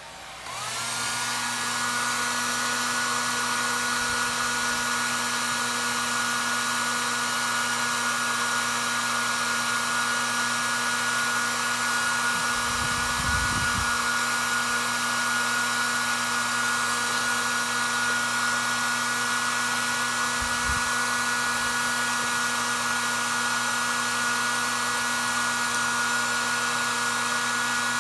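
Handheld electric blower switched on, spinning up in about a second, then running steadily with a high whine and a rush of air.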